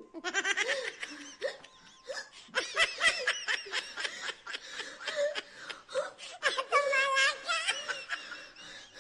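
A person laughing hard in rapid high-pitched bursts, with no words.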